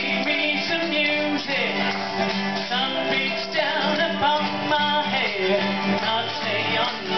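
Live acoustic folk band playing, with strummed acoustic guitars and mandolin.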